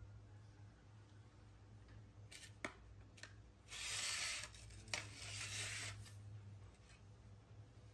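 Plastic plate being pushed and scraped across a stone ledge by a baby monkey: a few light clicks, then two rasping scrapes, each about a second long, about four and five seconds in.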